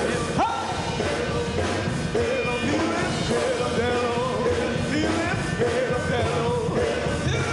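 Gospel band playing live, with electric guitars and a singing voice gliding over the music.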